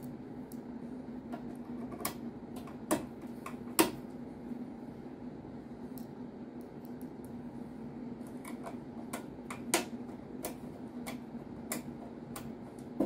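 Small metal screws clicking against each other and against a screwdriver's tip as they are handled and fitted onto the bit: a dozen or so irregular sharp ticks, the loudest about three and four seconds in and again near ten seconds, over a low steady hum.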